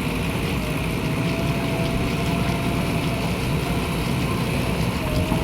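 Heavy diesel engine running steadily, with a thin steady whine held above the low rumble.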